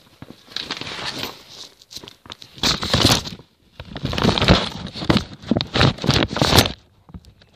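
Handling noise of a phone being slipped into a bag: the bag's material rustles and scrapes over the microphone in several loud surges, with small knocks and clicks.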